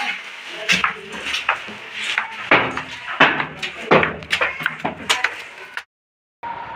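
Footsteps going down concrete stairs, heard as a string of irregular thuds and knocks with cloth rustling. The sound cuts off suddenly near the end.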